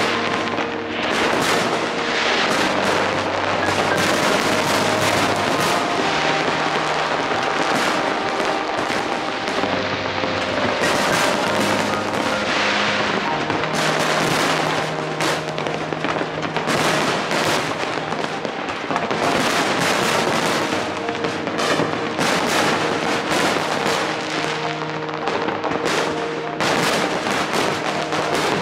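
Fireworks display with many shells bursting and crackling in quick, overlapping succession, and music playing underneath.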